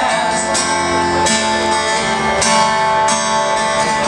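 Live band music: guitar strumming chords with no singing, the chord changing about every second.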